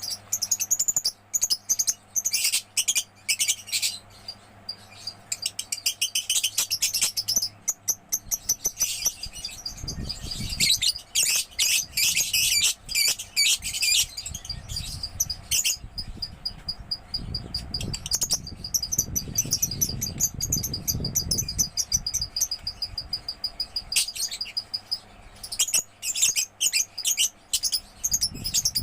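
Young lovebird chattering, a long stream of rapid, shrill chirps in bursts. A low rumble comes in twice beneath it.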